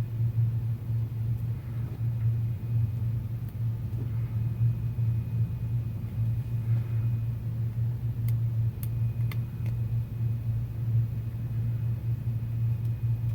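A steady low hum, with a few faint sharp clicks about eight to nine seconds in.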